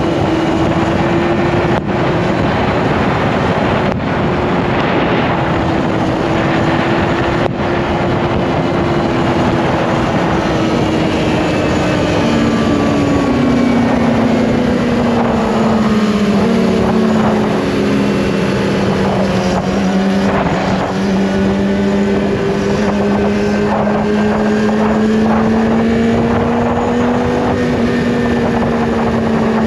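Yamaha R1 sport bike's inline-four engine running under way, its tone steady at first, then dropping lower in a few small steps about halfway through and holding there, with wind rushing over the microphone.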